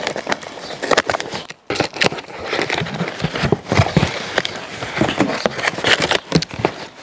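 A cardboard parcel being handled and opened: a dense, irregular run of scrapes, taps and rustles, with a short pause about one and a half seconds in.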